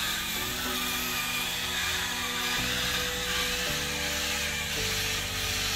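The small DC gear motors (Arduino TT motors) of a 3D-printed tracked robot car whining as it drives, with a wavering high pitch, over background music whose sustained chords change about once a second.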